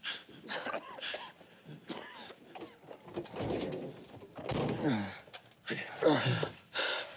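Breathless gasps and vocal grunts, with a dull car-door thunk about four and a half seconds in.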